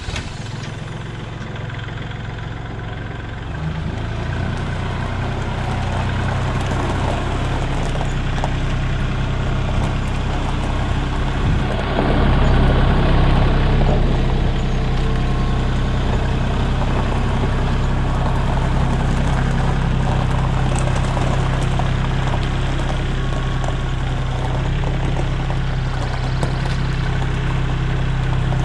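Compact tractor's engine running just after starting, steady at idle, growing louder about four seconds in and again around twelve seconds in as the tractor pulls out and drives.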